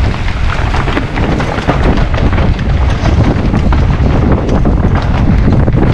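Heavy wind buffeting on an action camera's microphone at riding speed, with a steady low rumble and a dense run of clicks and rattles from an electric mountain bike's tyres and frame on a rough trail.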